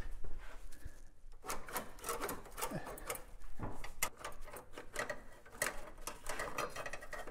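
A steel brake hard line being wiggled and fed through the underbody of a Jeep Grand Cherokee WJ by hand: a busy run of scraping and light clicking as the tubing rubs and taps against the chassis, with a short pause about a second in.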